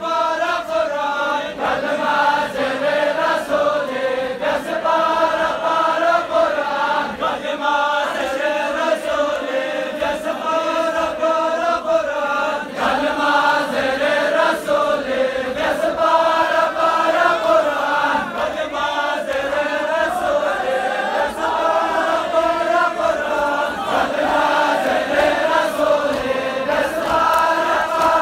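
A crowd of male mourners chanting a noha, a Muharram mourning lament, together in a steady repeating melody.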